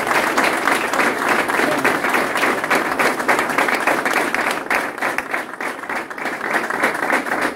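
A roomful of people applauding: steady, dense hand-clapping that holds at a constant level throughout.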